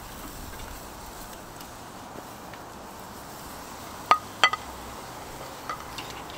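A few sharp clinks with a short ring, a cluster about four seconds in and one more near the end, as shellfish are handled on a charcoal grill.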